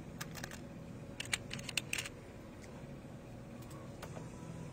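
Computer keyboard keys being tapped: a scatter of sharp clicks, most of them in the first two seconds, over a faint steady hum.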